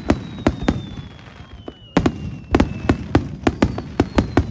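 Aerial fireworks shells bursting in a rapid string: a few sharp bangs, a short lull about a second in, then a dense volley from about two seconds on. A thin whistle slides slowly down in pitch behind the bangs.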